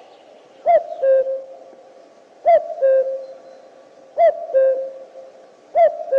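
A two-note hooting call repeated four times at even intervals, each a short note followed by a longer, slightly lower held note.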